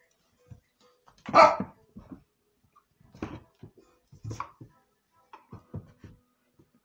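A dog barking a few times in short separate barks, the loudest about a second and a half in.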